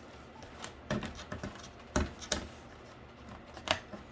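Scattered light knocks, taps and scrapes of cardboard and paper being handled, with the sharpest knock about two seconds in.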